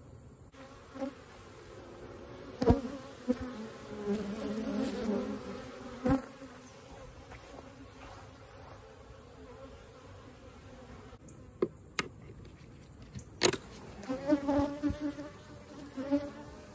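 Honeybees buzzing close by around the hive boxes, their pitch wavering as they swell and fade past. A few sharp knocks cut through the buzz.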